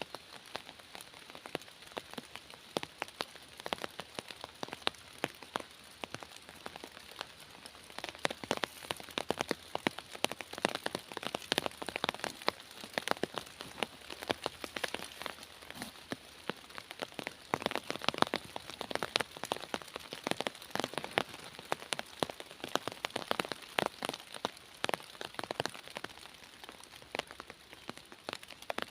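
Rain falling in a forest: many irregular drops pattering over a steady hiss of rain.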